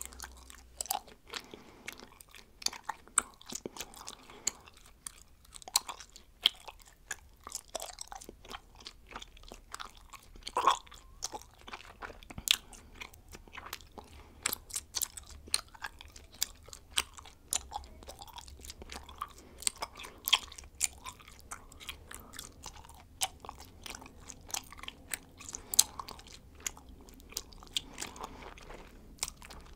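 Bubblegum being chewed close to a microphone, with quick irregular mouth clicks several times a second.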